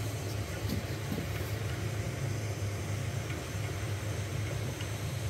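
Elegoo Neptune 4 Pro 3D printer running mid-print: a steady low hum of its cooling fans and stepper motors as the print head moves over the bed.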